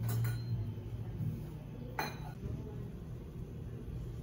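Café dishware clinking: a couple of light clicks at the start and one sharp clink of a cup or dish about two seconds in, over a steady low hum.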